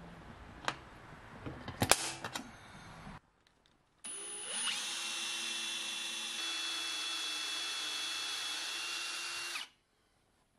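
A few sharp clicks of a center punch marking a steel plate. About four seconds in, a cordless drill spins up with a rising whine and runs steadily, drilling a pilot hole in thin steel plate, then stops near the end.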